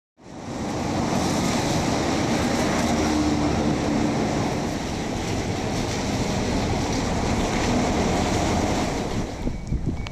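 Steady storm roar of typhoon wind and heavy surf, with wind buffeting the microphone. It eases near the end.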